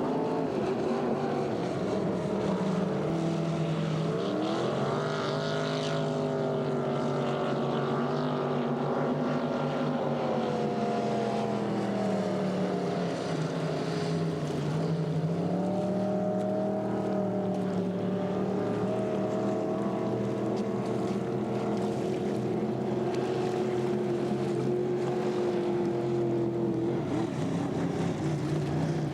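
Racing speedboat engines running hard at speed. The pitch climbs about five seconds in, sags about halfway through, then rises and holds steady.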